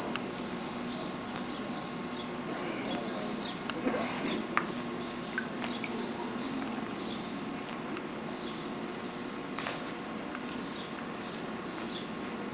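Outdoor insects chirping steadily, with a few faint clicks along the way.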